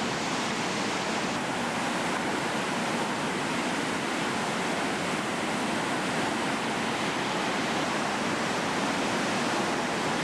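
Whitewater of a powerful Class V river rapid rushing and churning steadily.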